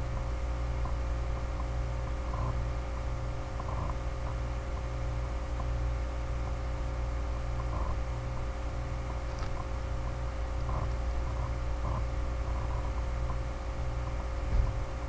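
Steady low electrical hum with a steady higher tone above it, the background noise of the recording setup. Faint soft ticks come every second or two, and there is one short low thump near the end.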